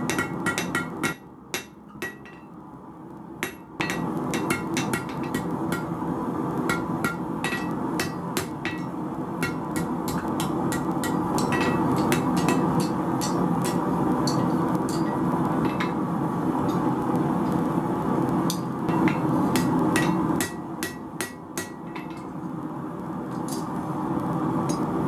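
Hand hammer striking red-hot steel on an anvil, irregular runs of ringing blows as the knife's handle is curled into a scroll. The blows sit over a steady rushing hum from the gas forge, which drops away briefly twice.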